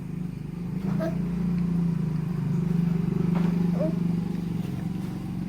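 An engine running steadily at a low pitch, with an even, fine pulse.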